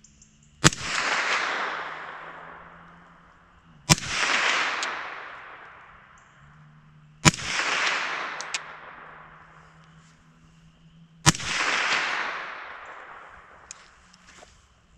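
Four single suppressed shots from a 300 Blackout AR-15 fitted with a SilencerCo Hybrid 46 suppressor, spaced three to four seconds apart. Each shot is followed by a long echo that dies away over two to three seconds.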